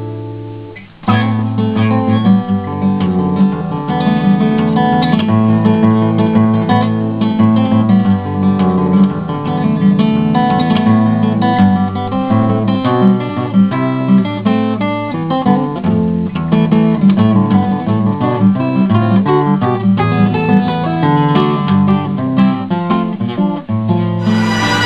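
Background music led by acoustic guitar. A held chord fades out, and about a second in a new picked and strummed passage begins and runs on. Right at the end a louder piece starts.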